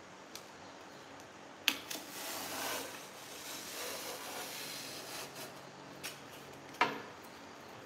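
Utility knife cutting cardboard along a straightedge: a sharp click about two seconds in, then several seconds of scraping as the blade draws through the board, and another click near the end.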